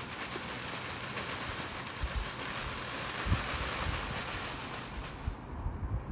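Firework fountain hissing steadily, then cutting off suddenly about five seconds in as it burns out, with a few low thumps underneath.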